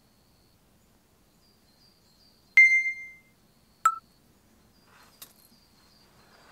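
Two sharp pitched dings about a second apart, the first higher and ringing longer, the second lower and shorter, over faint high chirping in the background.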